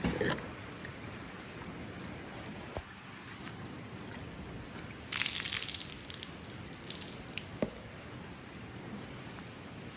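Floodwater sloshing and dripping, with a short louder splash about five seconds in and a couple of small knocks.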